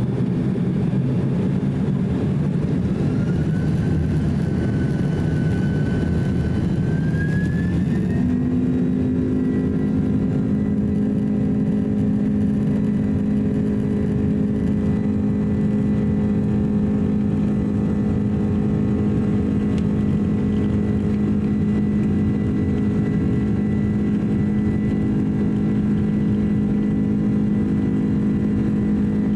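Boeing 767-300's twin General Electric CF6 turbofans heard from inside the cabin as they spool up to takeoff thrust: a rising whine over the first eight seconds or so. They then hold a steady high-thrust drone over the rumble of the takeoff roll on the runway.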